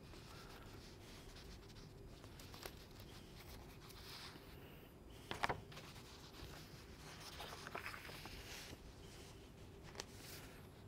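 Pages of a paperback book being leafed through, a soft paper rustle, with one brief louder snap about halfway through and a small click near the end.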